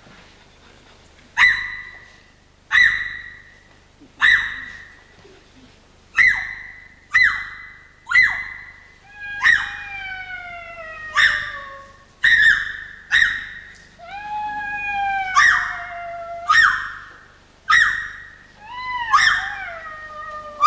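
Music of struck, ringing notes falling on a steady pulse about every second and a half, joined about halfway through by long tones that glide slowly down and then swell and fall in pitch.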